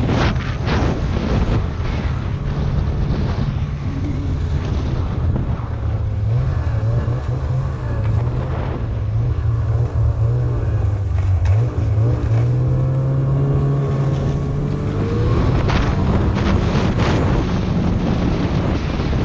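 Snowmobile engine running steadily under way, its pitch shifting slightly up and down as the sled cruises, with gusts of wind on the microphone near the start and again toward the end.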